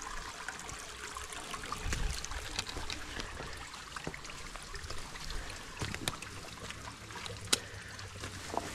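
Water trickling steadily from a fountain, with a few sharp clicks, the loudest about seven and a half seconds in.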